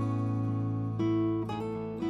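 Background music on acoustic guitar: strummed chords over a held low note, changing chord about a second in.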